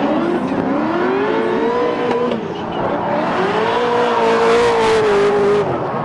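Drift cars running in tandem with their engines held at high revs: the engine note climbs, dips briefly a little past two seconds, then rises and holds before falling away near the end, over the hiss of tyres sliding and smoking.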